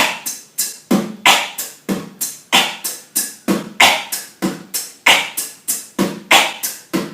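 Beatboxer performing a steady beat with the cough snare, a short cough shaped to imitate a snare drum. It falls on the strongest hits, about every 1.3 seconds, among quicker lighter beatbox sounds.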